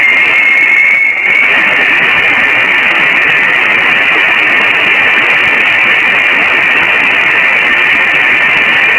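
Voyager 1's plasma-wave signal from interstellar space, converted into sound: a loud, steady hiss with a thin, high, steady tone running through it.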